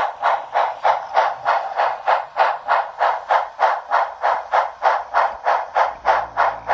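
Model steam locomotive's DCC sound decoder playing steady exhaust chuffs through its small speaker, about four a second. About six seconds in, a low buzz from the locomotive's electric motor joins; the motor is faulty, its armature slipping on the shaft so it spins without driving the wheels.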